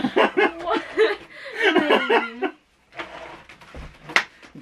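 Two people laughing, then a few sharp clicks and knocks from a boxed Funko Pop pack being handled, starting about three seconds in.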